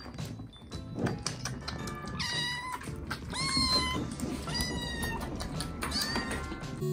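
Month-old kittens eating wet food from bowls, with small wet clicks and smacks of chewing. From about two seconds in, a kitten mews four times, each a short high cry.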